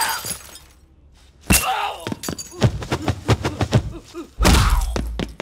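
Film fight sound effects: a shattering crash dies away at the start, then a heavy thud with a short cry about a second and a half in. A run of quick knocks and clicks follows, and a long, loud smash with a deep rumble comes near the end.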